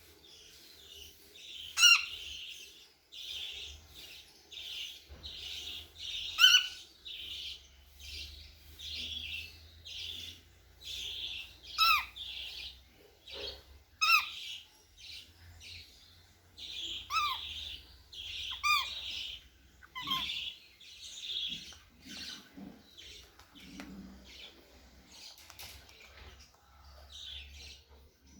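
Pet cockatiel calling: a steady string of short chirps about once a second, broken every few seconds by loud, sharp calls that drop steeply in pitch.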